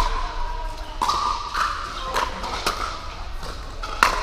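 Pickleball paddles striking hard plastic pickleballs: about six sharp pops at irregular intervals, each with a brief hollow ring, sounding through a large indoor hall.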